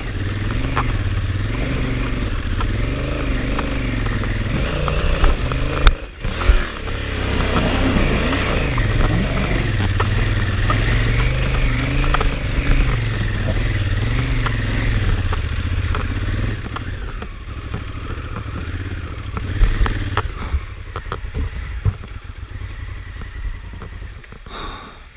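Honda Africa Twin's parallel-twin engine revving up and down under load as the bike climbs a rough, rocky trail, with clattering and scraping from the rocks and roots. There is a sharp knock and a brief dip in the engine sound about six seconds in, and the engine gets quieter over the last few seconds.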